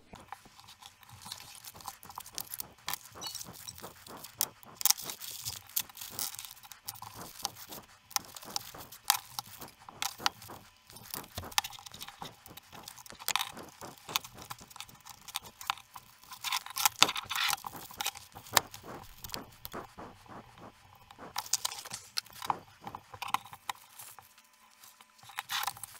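Plastic wrapping crinkling and metal parts clicking and clinking as a helping-hands soldering kit is unpacked: an irregular run of small crackles and clicks.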